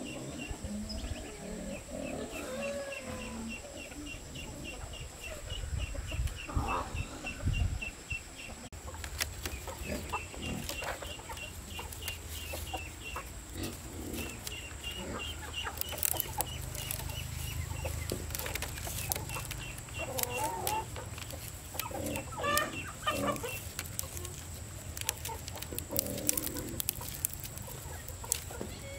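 Chickens clucking, with a high, rapid chirping repeating several times a second in the background. From about nine seconds in come light clicks and rustles of stiff bamboo strips being woven into a chicken cage.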